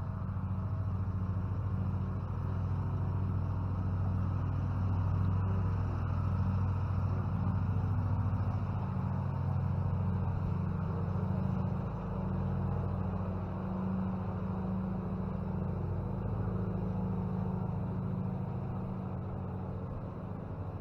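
A steady low engine drone runs throughout, its pitch shifting slightly a couple of times.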